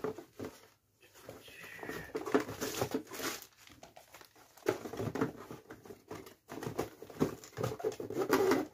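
Cardboard packaging and plastic wrapping rustling and knocking as a camera box's inner compartments are opened and rummaged through by hand, in irregular bursts with short pauses between.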